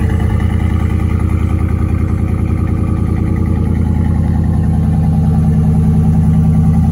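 2020 Chevrolet Silverado 1500's engine idling steadily on a cold start, heard through its aftermarket Karnage Performance exhaust as an even, low rumble.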